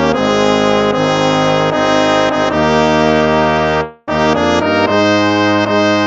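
Instrumental hymn music: slow, sustained chords moving from one to the next, with a brief break about four seconds in before the next phrase begins.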